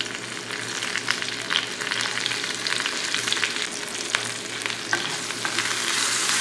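Fresh curry leaves sizzling and crackling in hot ghee with mustard seeds and green chillies in a frying pan: a steady hiss with frequent small pops, the tempering for dhokla. A wooden spatula stirs it near the end.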